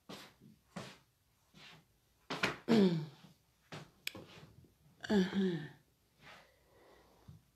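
A woman's voice making two short vocal sounds that fall in pitch, among clicks and light knocks from a phone being handled.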